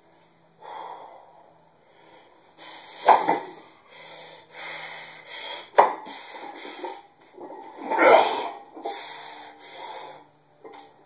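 Forceful breathing and straining grunts of a man lifting a plate-loaded wooden strongman log, with loud efforts about three and eight seconds in and a single sharp knock just before six seconds.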